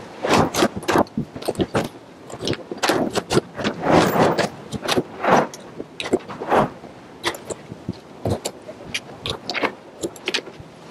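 Wooden batten strips knocking and clattering as they are handled and laid on the roof deck: irregular knocks, a few a second.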